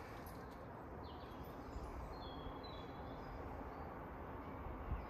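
Small birds chirping, a few short high notes about a second or two in, over a steady low outdoor background noise.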